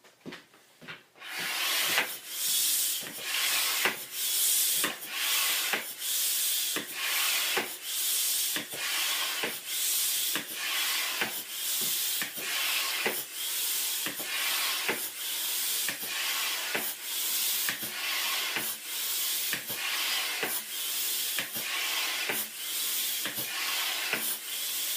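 Hand air pump inflating a balloon: rhythmic hissing strokes of air, roughly one and a half a second.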